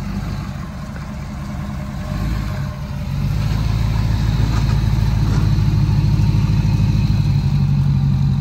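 Pickup truck engine running, then picking up revs about three seconds in and staying loud and steady as the truck is driven forward so the jon boat slides out of its bed.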